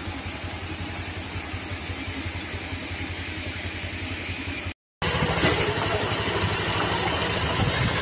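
Off-road vehicle's engine running steadily. A brief dropout comes just before the middle, after which it returns louder, with added noise from a tyre rolling over a dirt track.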